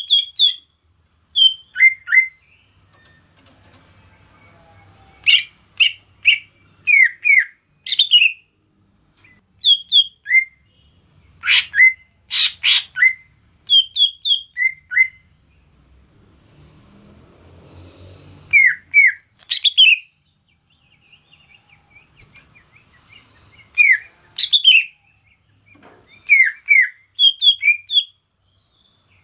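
Green leafbird (cucak ijo) singing: clusters of short, sharp whistled chirps and slurred notes, broken by pauses of a few seconds. A steady high hiss runs underneath throughout.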